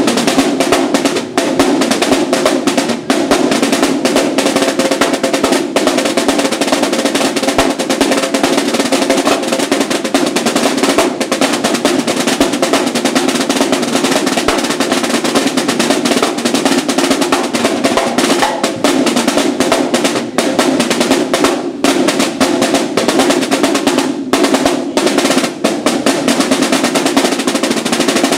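Two marching snare drums played together in rapid, unbroken patterns of sharp stick strokes and rolls.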